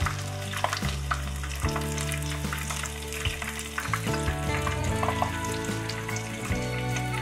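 Corn kakiage (corn-and-batter fritters) deep-frying in hot oil: a steady sizzle with many small crackles and pops.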